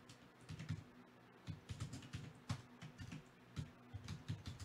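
Typing on a computer keyboard: a quick, irregular run of key clicks as names are typed in.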